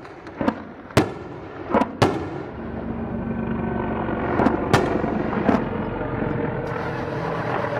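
Scattered sharp shots and bangs of combat fire during a helicopter gunship's rocket strike: several in the first two seconds, then more around five seconds in. A steady low engine drone runs under them from about two and a half seconds in.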